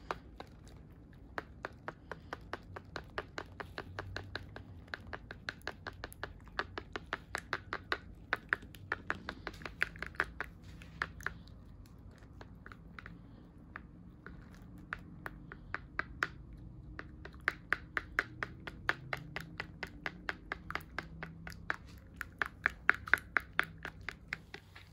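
A utensil stirring thick hair dye in a plastic tint bowl, clicking against the bowl about three times a second, with a quieter stretch in the middle.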